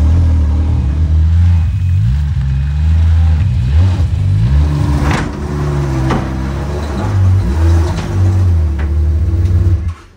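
Ski-Doo snowmobile engine running and being revved up and down as the sled is driven, then switched off, cutting out suddenly near the end.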